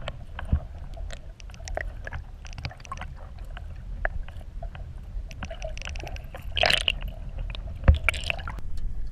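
Lake water gurgling and sloshing around an underwater camera housing, with a steady low rumble, many small clicks, and two louder sloshing surges in the second half.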